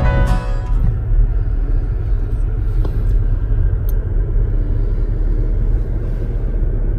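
Steady low rumble of a car driving on the road. A music track stops about half a second in.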